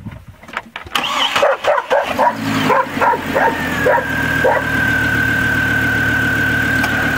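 Pickup truck engine cranking briefly on an alum-treated deep-cycle battery and starting, then running steadily with a steady high whine joining in. A dog barks several times over the cranking and start.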